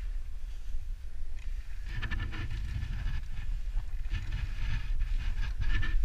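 Wind buffeting the body-mounted camera's microphone with a steady low rumble. From about two seconds in there is rustling and scraping as the climber's sleeves, hands and gear rub against the granite wall.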